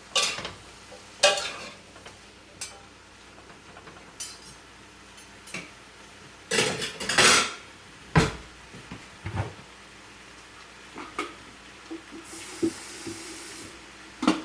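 A cooking utensil scraping and knocking against a pan as stir-fried vegetables are stirred, in irregular strokes with a longer scrape about halfway through. A faint sizzle of frying runs underneath.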